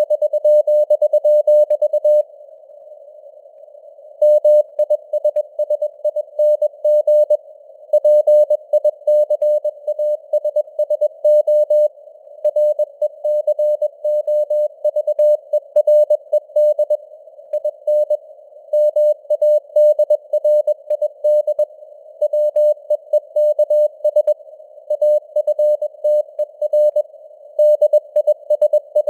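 Morse code (CW) sent at 21 words per minute: a single mid-pitched tone keyed in dots and dashes over a narrow band of simulated radio-receiver hiss, with longer pauses between words.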